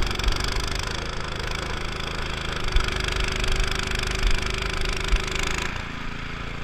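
A small engine running steadily with a rough, noisy sound, which changes abruptly to a duller tone near the end.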